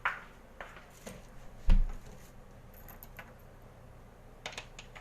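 Scattered light clicks and taps of small objects being handled close by, with one dull thump about a second and a half in and a few quick clicks near the end.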